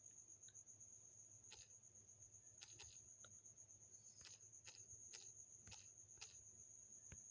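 Near silence: a faint steady high-pitched whine, with about seven soft, scattered clicks.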